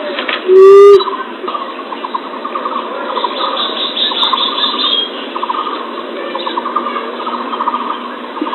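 Common emerald dove (punai tanah) calling: one loud, low, short hoot about half a second in. After it comes a quieter steady background of rapid trilling bird notes.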